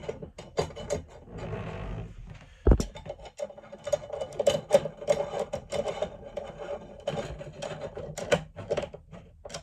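Screws being driven into a bathtub overflow drain cover plate: a run of quick small clicks and scrapes, with one loud knock about three seconds in.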